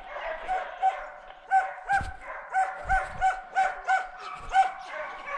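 A pack of deer-hunting hounds baying: a continuous chorus of several dogs. Through the middle one nearer hound gives short, evenly repeated barks, about three a second.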